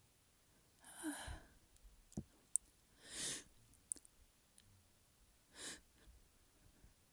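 Three breaths, one about a second in, one about three seconds in and a short one near the end, with a few faint clicks between them: a person's breathing while their nose is tickled to bring on a sneeze, no sneeze yet.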